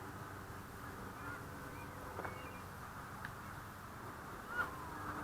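Faint, scattered short bird calls over a low steady background, a few separate calls with the clearest one near the end.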